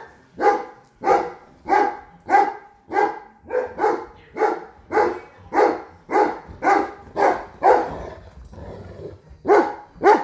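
A large-breed dog barking over and over in a steady rhythm, some fifteen loud barks about every 0.6 seconds, broken by a short pause about eight seconds in. It is play barking while the dogs wrestle.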